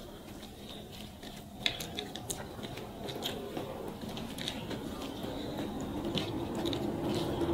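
Close-up eating sounds of people eating rice and fish curry by hand: chewing, wet mouth clicks and the soft squish of rice being mixed with the fingers, with scattered small clicks.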